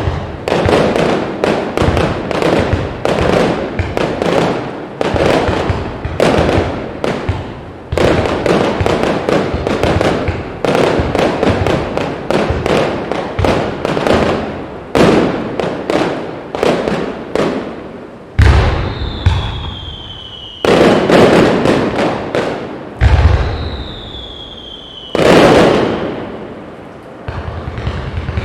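Aerial fireworks going off in a rapid, dense barrage of bangs and crackling reports. In the last third come a few heavier booms, each followed by a high whistle that slowly falls in pitch.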